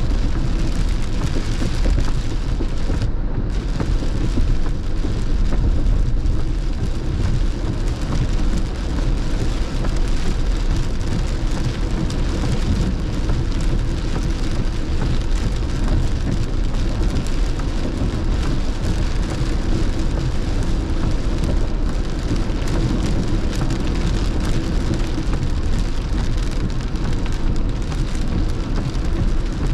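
Steady heavy rain on a car's roof and windshield, heard from inside the cabin, mixed with the hiss of tyres and road noise on a wet freeway.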